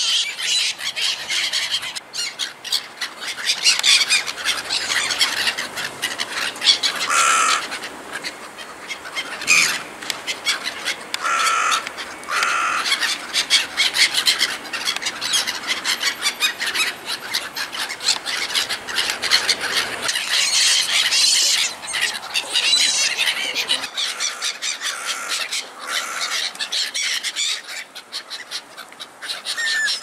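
A flock of black-headed gulls calling without a break, many harsh, high screeching calls overlapping.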